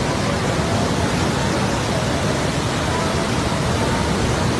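Floodwater of the swollen Parvati river rushing past in a loud, steady wash of noise.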